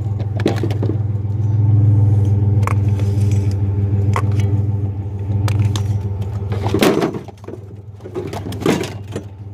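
Engine idling with a steady low hum, with scattered metal clinks and knocks from a wrench and scrap metal. The engine hum drops away about seven seconds in.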